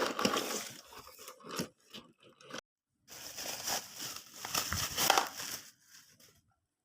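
Plastic and paper packaging crinkling and rustling as it is handled, in irregular bursts with a brief dropout about two and a half seconds in, then fading out near the end.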